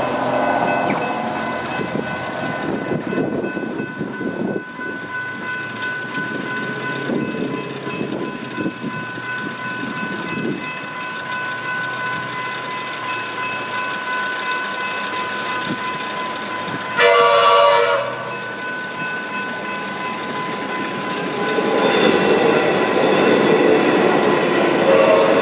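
Level crossing warning bells ringing steadily. About 17 s in, a train horn sounds for about a second, and from about 22 s a train comes through the crossing with a louder rumble of wheels on the rails.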